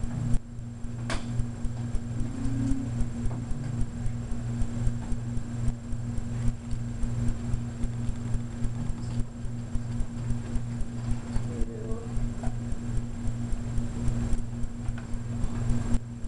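Steady low hum pulsing in step with a regular ticking, a few ticks a second, with one sharp click about a second in.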